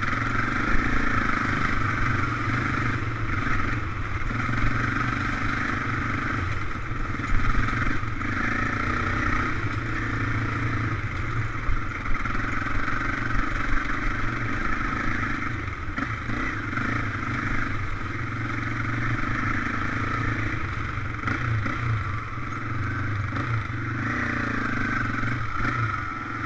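Off-road vehicle engine running under way on a trail ride, its revs rising and falling. A few short knocks stand out over the engine.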